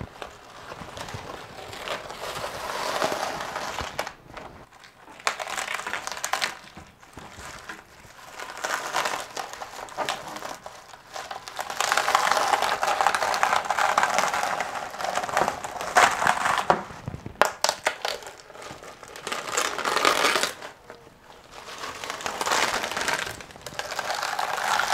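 Plastic vacuum-bagging film crinkling and crackling as it is pulled and peeled off freshly cured carbon fiber paddle blades, in several bouts with short pauses between them.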